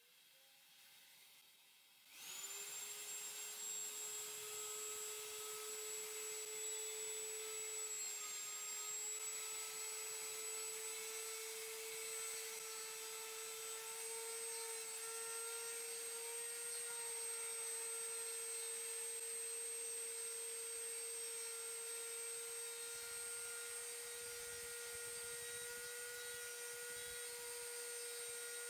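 Dremel rotary tool motor switching on about two seconds in, then running steadily at high speed with a high, even whine that creeps slightly up in pitch.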